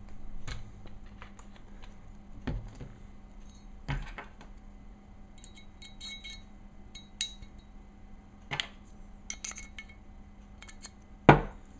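Glock pistol slide and small metal parts being handled: scattered clicks, clinks and knocks of metal on metal and on a hard surface, the sharpest knock near the end.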